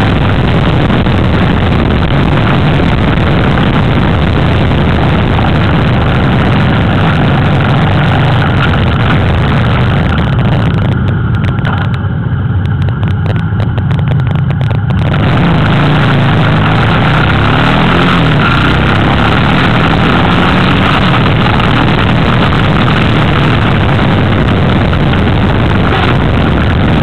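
Motorcycle engine running steadily at road speed, recorded from on the moving bike, under a loud rushing noise of wind on the microphone. The rushing noise thins out briefly about halfway through.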